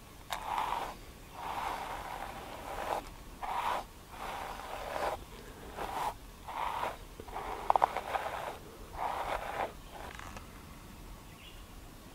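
A bristle hairbrush being pulled through a long, thick beard: a series of brushing strokes, about nine in all, that stop about ten seconds in.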